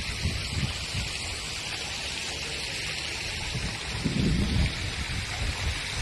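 Wind buffeting the microphone in irregular low gusts over a steady outdoor hiss, with the strongest gust about four seconds in.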